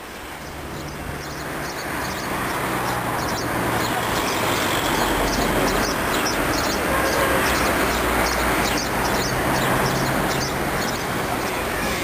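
Instrumental music fading in over the first few seconds, with held low bass notes that change every few seconds and a steady high tick about three times a second over a dense wash.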